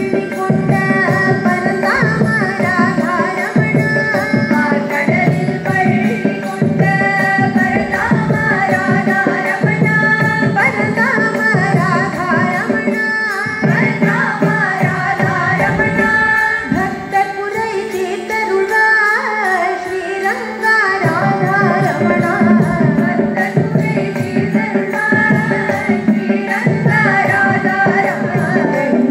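A devotional bhajan (nama sankeerthanam) sung in Carnatic style over a steady drone, with hand-drum accompaniment. The drumming drops out for a few seconds past the middle, then returns.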